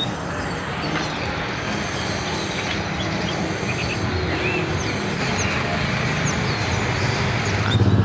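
Many short chirps from caged songbirds over a steady engine rumble of passing traffic. An engine gets louder near the end.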